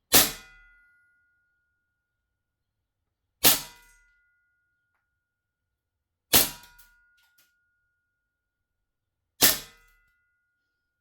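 Gas blowback airsoft pistol fired four times, about three seconds apart, its red-gas magazine heated to about 54 °C. Each shot is a sharp crack with a short metallic ring.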